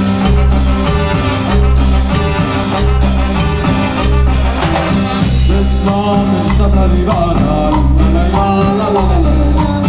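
Live cumbia band playing: electric bass and drums keep a steady pulsing beat, with a melodic lead line over it.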